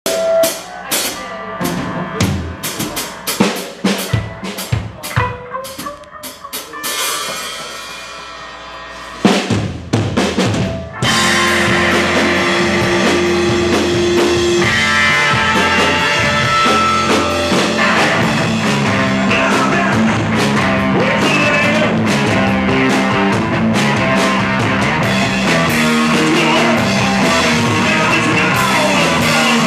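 Live rock band. Scattered drum and cymbal hits come first, with a sustained tone swelling up briefly. About eleven seconds in, the full band of electric guitar, electric bass and drum kit comes in at once and plays on steadily and loudly.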